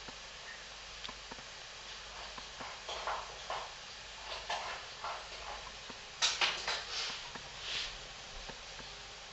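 Dough frying in hot vegetable oil: a steady low hiss with irregular crackles and pops, and a cluster of louder pops about six to seven seconds in.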